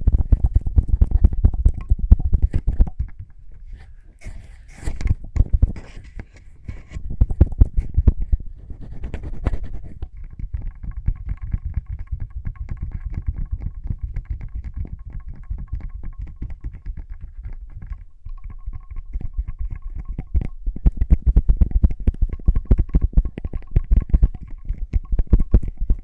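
Close-miked ASMR lip balm sounds: fast, crackly clicks and rubbing of the balm and lips right against the microphone, easing off for a few seconds and then picking up again.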